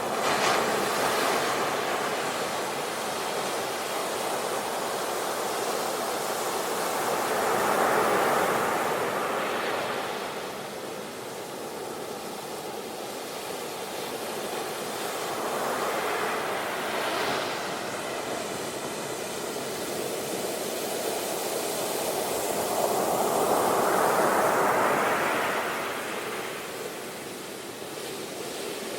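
Sea waves breaking on a shore and washing back, the surf swelling to a peak about every eight seconds, four times.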